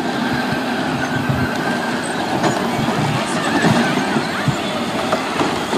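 Several Power Wheels battery-powered ride-on toy cars driving around together, their small electric motors and plastic gearboxes whining in a steady, dense mix, with a few short squeals around the middle.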